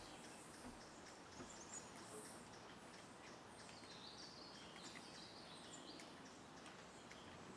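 Faint rainforest ambience: a low, even hiss with distant high-pitched bird calls and chirps scattered through it.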